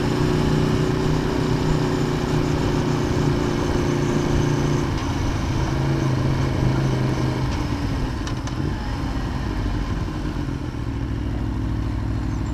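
Aprilia Tuono APRC motorcycle's V4 engine running at steady revs. The note dips about five seconds in, holds again briefly, and then drops away to a lower, rougher running from about eight seconds.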